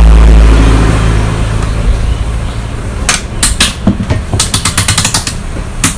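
A loud low electrical hum that fades away over the first second or two, then scattered sharp clicks and taps, with a quick run of taps about five seconds in, as a battery charger is handled on the bench.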